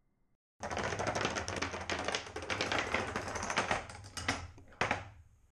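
Padlocks toppling into one another in a chain, a dense rapid clatter of metal clicks and knocks. It starts suddenly, thins out near the end with one last loud knock, then cuts off abruptly.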